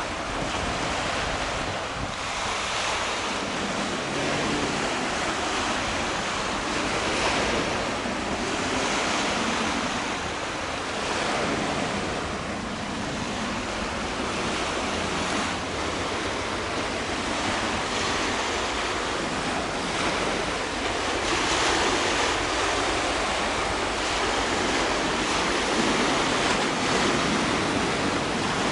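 Wind buffeting the microphone over the steady wash of open sea water, rising and falling slightly in level, with no distinct engine note.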